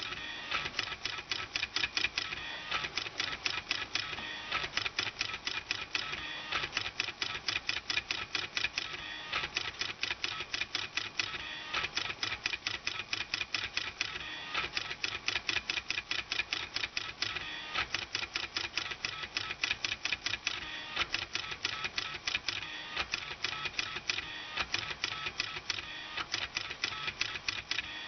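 Small stepper motors from salvaged CD-drive laser sleds driving a homemade pen plotter as it draws: rapid stop-start clicking with a high buzzing whine, like a small printer at work.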